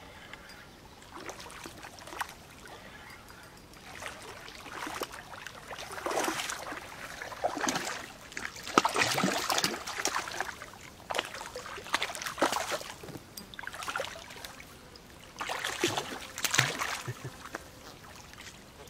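Water splashing in irregular bursts as a hooked catfish thrashes at the surface while it is reeled to the boat. It is quiet at first, the splashing builds a few seconds in, and it comes again in a last flurry near the end.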